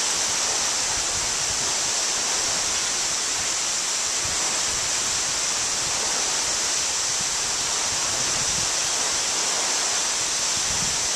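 Wli Falls, a large waterfall, pouring into its pool: an unbroken, steady rush of falling water. A few faint low buffets of wind on the microphone come through it.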